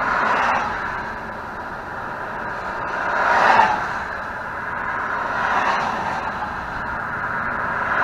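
Highway traffic rushing past: a steady tyre-and-wind roar that swells as each vehicle goes by, loudest with one car passing close about three and a half seconds in.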